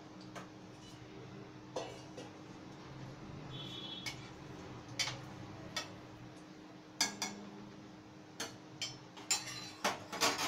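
Steel cooking utensils, a spatula and a slotted spoon, clinking and scraping against a metal kadhai and the steel stove top: scattered sharp clinks, most of them close together in the last three seconds.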